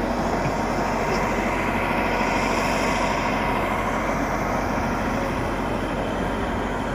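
Radio-controlled model Cat hydraulic excavator running and working its boom: a steady mechanical drone, with the background noise of a busy exhibition hall.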